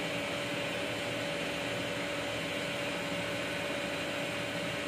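Steady mechanical hum and hiss, with one constant tone, like a motor running in the room.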